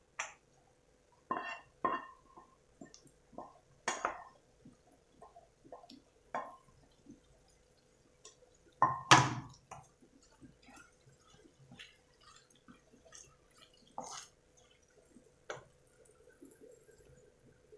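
Spoon and wooden spatula scraping and tapping against a frying pan as thick white sauce is spooned onto chicken and stirred in: scattered short scrapes and knocks, the loudest cluster about nine seconds in.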